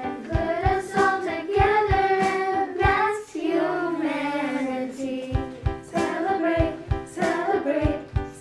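A children's choir singing a song from a musical over a backing track with a steady beat. Midway the beat drops out for about two seconds while a long note slides down, then the beat comes back.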